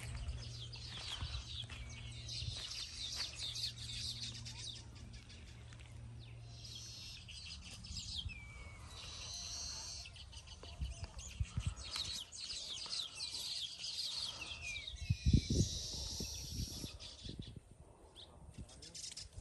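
Small birds chirping in quick, high clusters, with scattered clicks and rustles. A low steady hum runs through the first third, and a few low thumps come about three-quarters of the way through.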